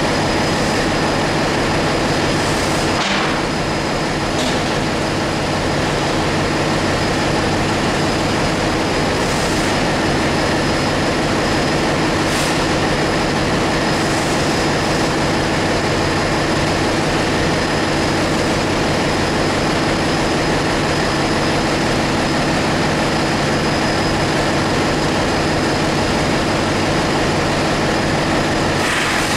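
Steady, loud drone of running ship's engine-room machinery, with several steady tones held throughout and a few brief clicks.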